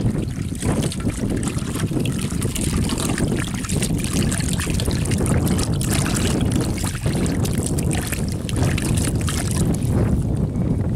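Wind buffeting the microphone in a steady low rumble, over water sloshing and splashing as hands rub pieces of dried fish in a steel basin of water.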